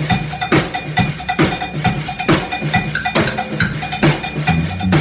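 Live rock band playing an instrumental passage: drum kit beating a steady rhythm about twice a second, with electric guitar and bass guitar. A short high note repeats quickly throughout, and the bass line comes in fuller near the end.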